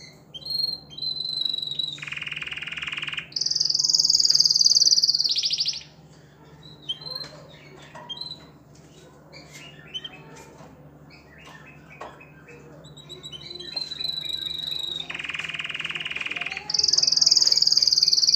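Male domestic canary singing its breeding song: a whistled note, then a rapid buzzy trill and a loud, high rolling trill, then a stretch of softer scattered chirps. The same whistle-and-trill sequence comes again from about thirteen seconds in.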